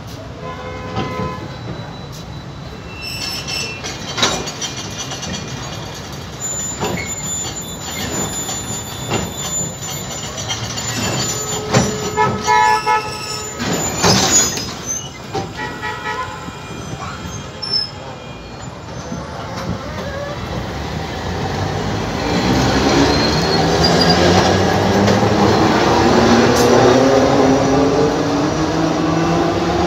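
Alexandria tram pulling away along the platform. Scattered clanks and a thin squeal from the wheels come first. Then, from about two-thirds of the way through, a rising whine from its electric motors grows louder as it speeds up.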